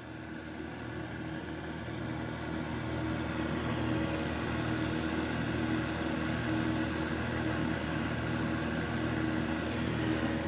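Steady low machine hum with a low tone that wavers slightly, rising over the first couple of seconds and then holding level, with a few faint clicks near the end.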